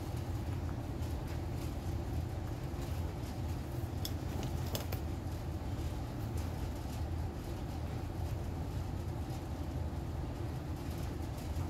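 Steady low rumble, even in level, with a couple of faint sharp clicks about four and five seconds in.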